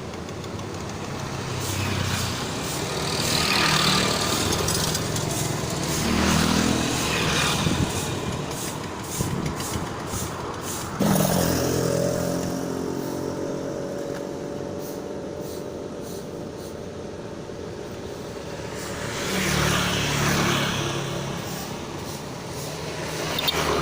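Road traffic passing close by, in several swells of tyre and engine noise. About halfway through, a heavy vehicle's engine comes in suddenly and drops in pitch as it passes.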